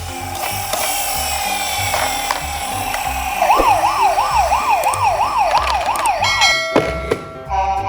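A siren sounds: a steady high tone, then about three and a half seconds in a fast wail that rises and falls about three times a second for about three seconds. Background music with a steady beat plays underneath.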